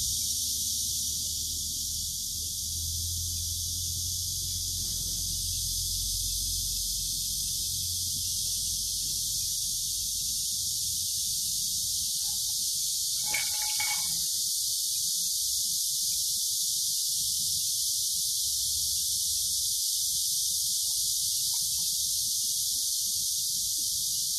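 Steady, dense high-pitched insect chorus. About halfway through comes one brief chirp, and a low rumble underlies the first part.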